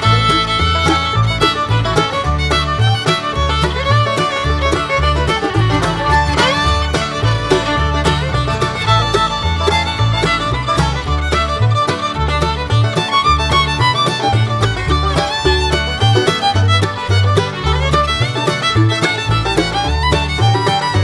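Upbeat music with a fiddle melody over a heavy, steady bass beat.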